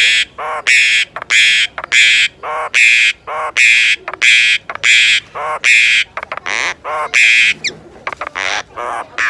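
Caged common myna giving a rapid series of harsh, raspy squawks, about two a second, with shorter lower-pitched notes between them. The squawks stop a little past three-quarters of the way through, and a brief falling whistle follows.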